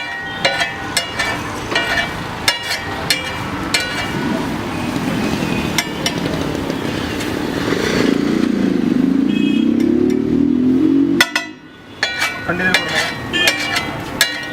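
Metal spatula clanking repeatedly against a flat iron tawa at a street-food stall. An engine passing by rises in pitch about two-thirds of the way in, then the sound cuts off sharply.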